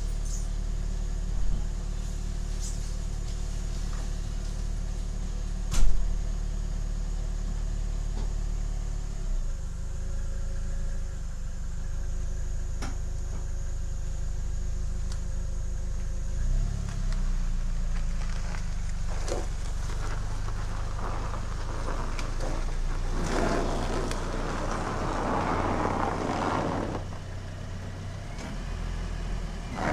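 Car engine running with a steady low hum that shifts in pitch about ten and again about seventeen seconds in. Two sharp knocks in the first six seconds, and a rushing noise for a few seconds near the end.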